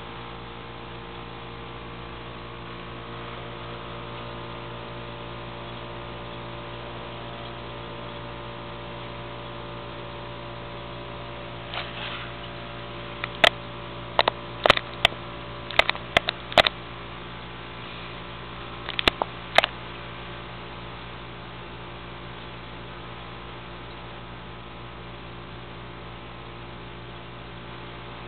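Steady electrical mains hum, with a cluster of about a dozen sharp clicks and taps between roughly 13 and 20 seconds in. The clicks are much louder than the hum.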